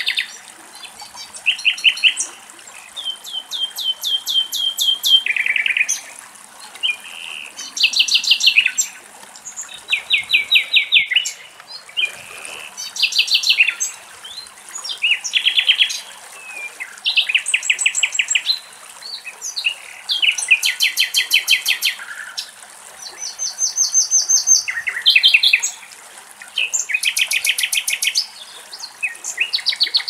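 Common nightingale singing: a string of phrases, each a second or two of rapid, evenly repeated high notes, with short pauses between phrases.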